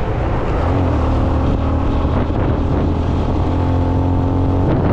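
Motorcycle engine running at a steady pitch, stepping up slightly near the end.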